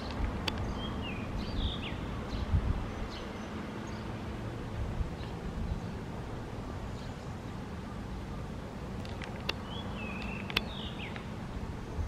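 Male blue rock thrush singing from a distance: two short phrases of gliding, warbling whistled notes, one about a second in and another near the end, over a steady low background rumble.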